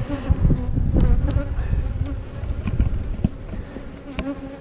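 Honeybees buzzing around an opened hive, a steady hum that fades gradually, with a few sharp knocks from hive parts being handled.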